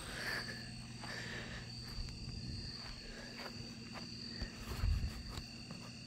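Night chorus of insects and frogs, a steady high trill with short calls over it. A couple of low thumps come about five seconds in.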